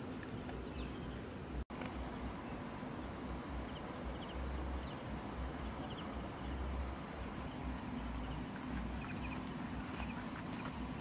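Insects shrilling in a steady high drone, with a few faint short chirps over it and a low rumble underneath. The sound cuts out for an instant about two seconds in.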